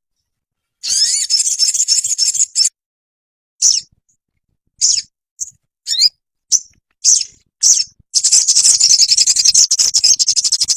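Sogon bird song from a masteran (bird-song training) recording. It opens with a burst of fast, high chattering. Next come single short high calls about every half second. About eight seconds in, a long, rapid, high-pitched trill begins and runs on.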